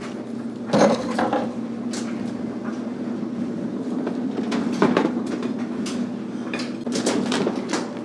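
A home laundry machine, freshly started, running with a steady hum. Over it come a few knocks and rustles from wiping down and handling things on top of the dryer.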